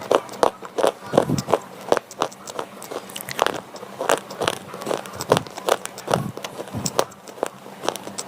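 Slate pencils being bitten and chewed: an irregular run of sharp, dry crunches, a few a second.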